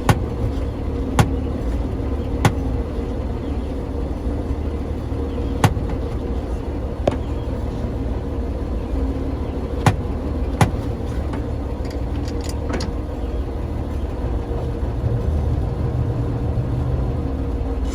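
1956 Dodge Town Panel engine idling steadily, with about eight sharp metallic clicks scattered through it.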